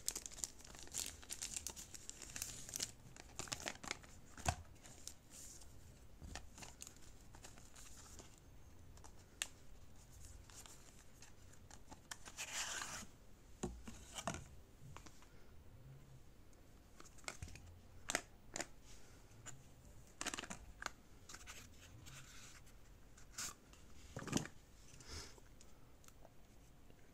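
Thin plastic wrap crinkling and tearing as a small product box is unwrapped, dense for the first few seconds. After that come scattered sharp clicks and short rustles from the box, its lid and the plastic insert being handled.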